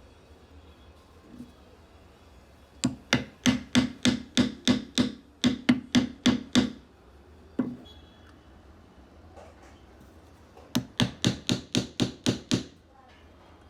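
Rapid mallet blows striking wood: a run of about fourteen even knocks, a single knock, then after a pause a faster run of about nine knocks.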